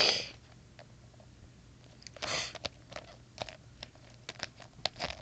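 Plastic Littlest Pet Shop figures clicking and scraping on asphalt as they are knocked about by hand, with two short rushes of noise, one at the start and one about two seconds in.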